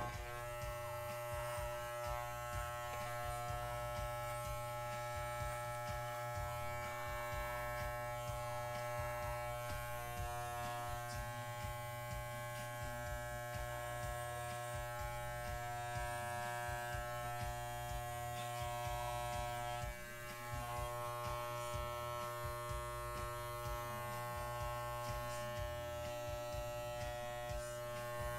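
Electric pet hair clippers buzzing steadily as they trim a miniature schnauzer's coat.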